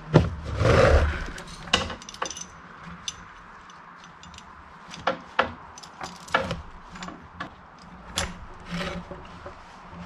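A metal chain clinking and rattling in short bursts as it is wrapped around the end of a log, with a louder scraping clatter about a second in.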